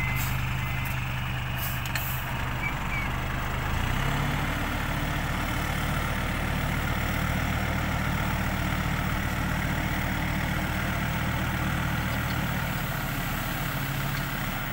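Hino dump truck's diesel engine idling, then speeding up and holding a higher steady note from about four seconds in while the hydraulic hoist raises the loaded tipper bed to dump soil. The engine drops back to idle near the end. A few reversing beeps sound in the first second.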